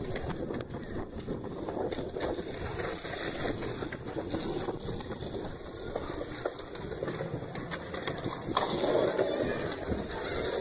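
Outdoor background noise: a steady wash of wind with faint voices of people around.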